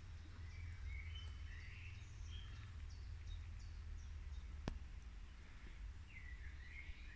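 Faint birdsong: scattered chirps and short whistled phrases from small birds, over a low steady rumble, with a single sharp click about four and a half seconds in.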